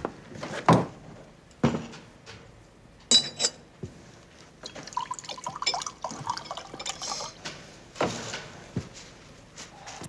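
Vodka poured from a glass bottle into a glass for a couple of seconds, the note of the pour rising as the glass fills. Before it come several knocks of glass on a wooden counter and a bright clink, and another knock follows.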